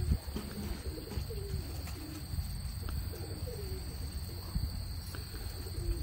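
Homing pigeons cooing at their coop: a string of repeated low rising-and-falling coos, over a steady low rumble.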